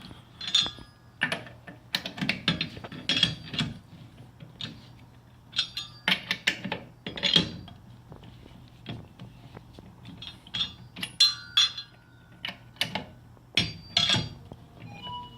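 Tire iron and socket clinking against the wheel's lug nuts as they are loosened, a series of sharp metallic clinks and knocks at irregular intervals.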